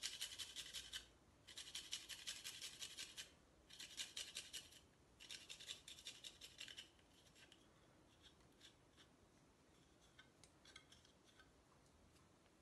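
A garlic clove rubbed on a small hand grater in four quick bouts of rapid scraping strokes with short pauses between them, then a few faint scrapes near the end.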